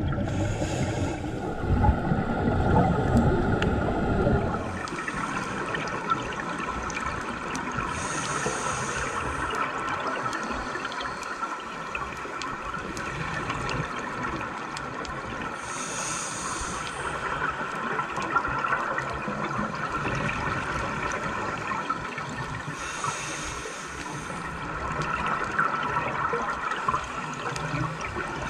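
Underwater sound of a scuba diver breathing through a regulator. It starts with a loud rush of exhaled bubbles for the first four seconds or so, then settles into a steady hiss with a faint constant whine. Short high hisses of inhalation come about every seven to eight seconds.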